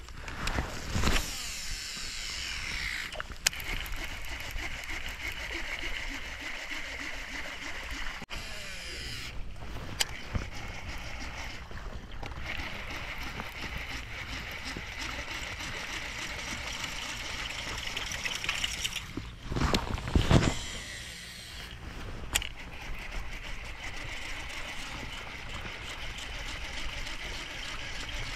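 Casting and reeling with baitcasting tackle: a buzzbait thrown and wound back in. A steady background runs throughout, with brief louder sharp sounds about a second in and again around twenty seconds in.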